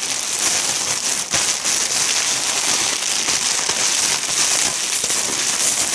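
Clear plastic packaging bag crinkling and rustling continuously as it is handled and opened.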